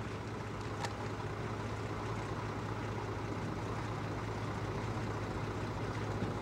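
Car engine running steadily, a low even hum heard from inside the car, with a single light click about a second in.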